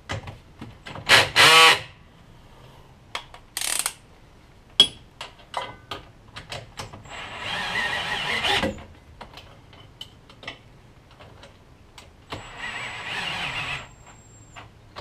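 Ryobi cordless impact wrench tightening 19 mm suspension bolts: a short burst about a second in, then two longer runs of rapid hammering, in the middle and near the end. Sharp clicks and knocks of the tool and socket fall between them.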